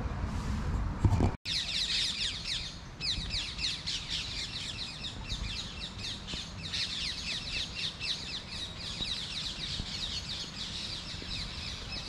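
A dense chorus of many small birds chirping and calling at once, with quick overlapping short notes, many of them sliding downward. It cuts in about a second and a half in, after a brief low rumble and a bump.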